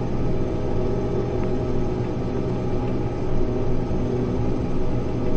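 Combine harvester running steadily while cutting wheat, heard from its cab: a constant engine and machinery drone with no change.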